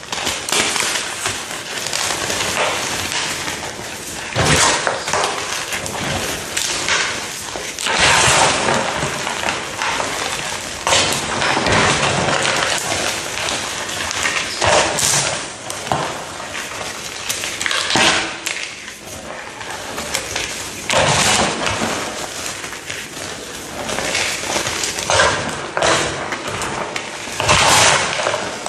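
A brittle material being pressed and crushed: continuous crunching and crackling, with louder snaps and pops every second or two.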